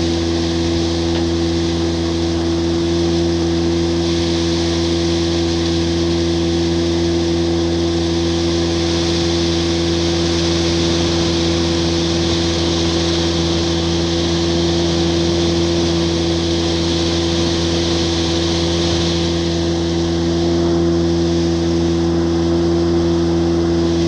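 Boat engine running at a constant speed, a steady drone that never changes pitch, over a continuous hiss.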